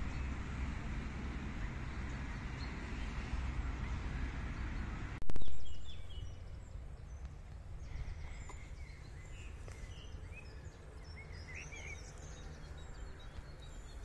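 Outdoor ambience. For the first five seconds there is a steady rushing noise with a low rumble, then a sudden loud burst that dies away quickly. After it, small birds chirp over a faint low rumble.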